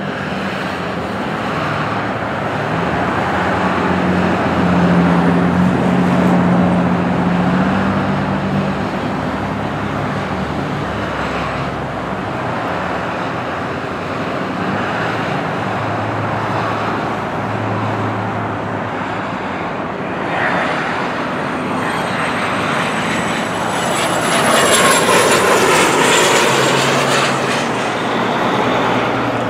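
Hawker Beechcraft 400XP business jet on landing approach, its twin turbofans making a steady jet noise. It grows louder near the end as the jet passes close, with a high whine that falls in pitch.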